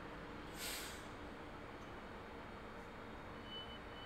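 Short hiss of compressed air from a train's air brakes about half a second in, over a steady low background noise. Near the end a faint, high, interrupted beeping starts.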